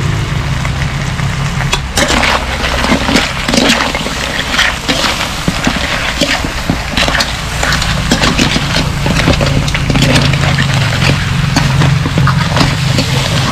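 Metal ladle and tongs scraping a metal wok and clacking against hard crab shells as mud crabs and corn are tossed, a quick run of sharp clicks and scrapes starting about two seconds in. A steady low hum runs underneath.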